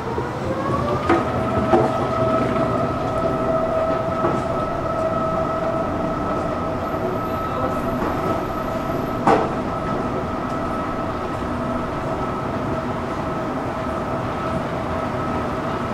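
Escalator drive running with a steady two-tone electric whine. The whine rises in pitch over the first second as it gets up to speed, then holds level. A few short clacks come through, the sharpest about nine seconds in.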